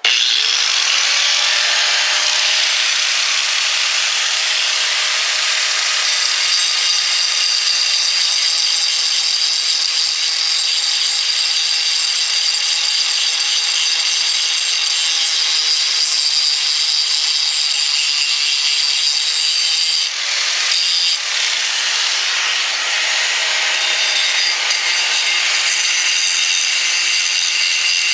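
Mastercraft 6-amp 4.5-inch angle grinder switched on and spinning up within about a second, then running loud and steady while grinding, with high whining tones over a harsh grinding hiss. The sound dips briefly about two-thirds of the way through.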